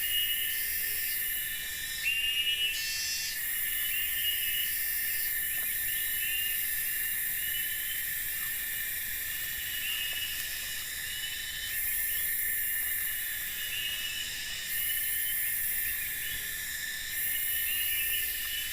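Night chorus of insects in the forest: a steady high trill with still higher layers switching on and off every second or two, and short chirps repeating over it.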